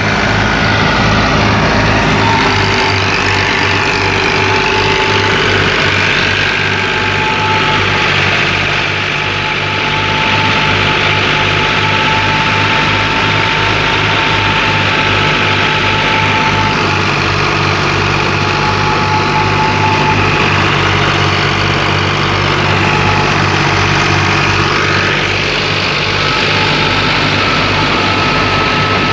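New Holland Fiat 480 tractor's diesel engine running steadily with an even low throb, a steady whine sounding over it.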